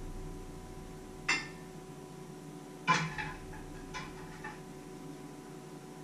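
Pots and dishes knocking against each other and the stainless steel sink as they are handled: a sharp clink about a second in, another about three seconds in, then a few lighter knocks, over a steady hum.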